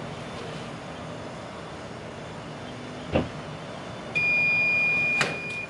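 Heat press timer alarm sounding one steady high beep for about a second and a half near the end, signalling that the pressing time is up. A sharp knock comes about three seconds in, and a click during the beep.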